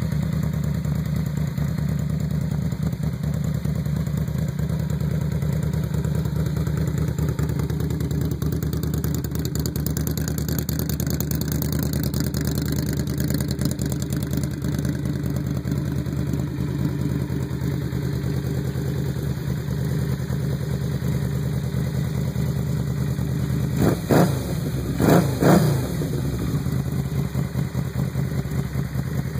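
Yamaha V-Max's V4 engine idling steadily through big stainless aftermarket mufflers, then blipped a few quick times near the end, the pitch jumping up and dropping back each time.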